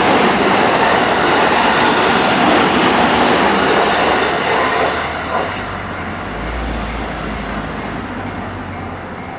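Electric train passing over a level crossing: loud rushing of wheels on rails that eases off about five seconds in, leaving a low rumble.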